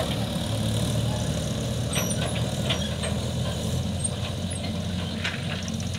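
Mahindra 575 tractor's four-cylinder diesel engine running steadily as it tows an empty steel trolley, with a few short clicks over the engine hum.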